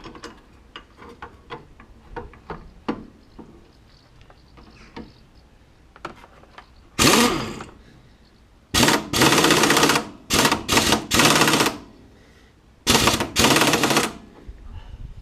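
Impact gun hammering in rapid bursts: a short burst about seven seconds in, a longer broken run of bursts after it, and a final burst near the end. It is winding wheel nuts on to pull new wheel studs into the hub. Light clicks and knocks come before the bursts.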